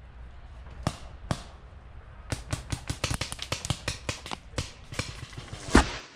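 Paintball markers firing: a few single shots, then a quick, irregular string of sharp pops over about three seconds, ending with one louder shot.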